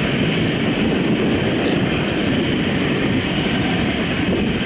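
Airbus A340 jet engines running at low taxi thrust: a steady, even noise as the four-engined airliner rolls slowly along the runway.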